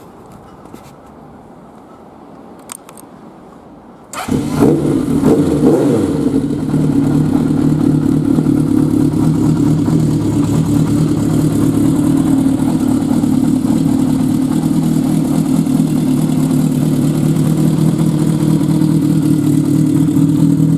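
Honda CB750FC's air-cooled inline-four engine starting about four seconds in, its speed rising and dipping briefly before settling into a steady idle. A few light clicks come before it.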